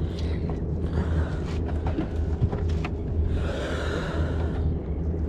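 A small fishing boat's engine runs steadily with a low hum, with a few light clicks from handling the hooked fish and lure. A hiss swells up about three and a half seconds in and fades a second later.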